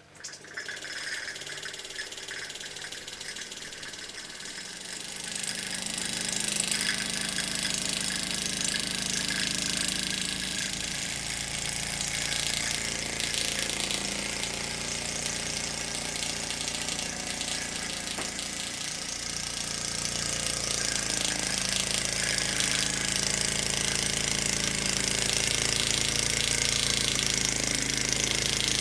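Tony Wright toy steam dairy engine, a small live-steam engine with a vertical copper boiler, starting suddenly as its flywheel is flicked and then running steadily with a hiss of steam. It grows louder about five seconds in and again after about twenty seconds.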